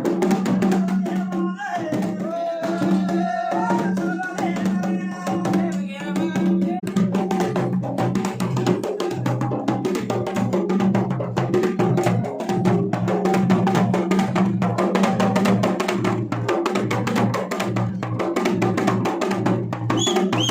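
Dhol and damau, Garhwali folk drums, played together in a fast, driving rhythm of dense strokes with a deep, steady drum tone underneath. For a few seconds near the start a voice sounds over the drums.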